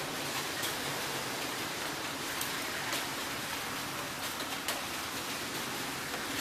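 Heavy rain falling in a steady hiss, with a few sharp clicks of drops striking something close.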